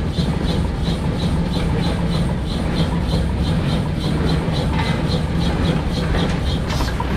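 Thew Type O steam shovel's steam engine running, its exhaust chuffing in an even beat of about three a second over a low steady hum.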